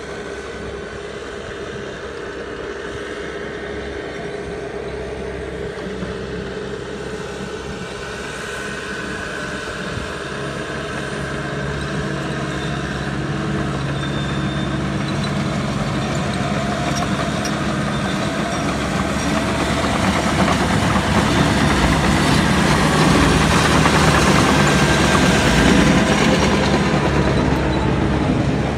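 John Deere 650J crawler dozer's diesel engine running under load as it drags a load of logs, growing steadily louder as it comes close.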